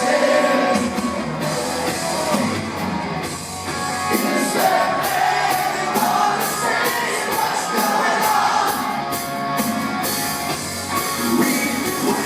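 Live rock band playing, with a male lead singer and steady cymbal strokes through the middle stretch.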